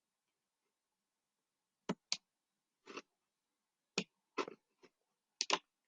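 A handful of short, sharp clicks of a computer mouse, several in quick pairs, with silence between them.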